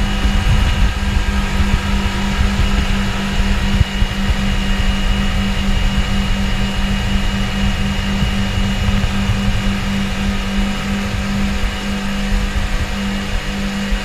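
Twin Suzuki outboard motors running steadily at high speed, a constant engine drone with a faint high whine, over a low rushing noise.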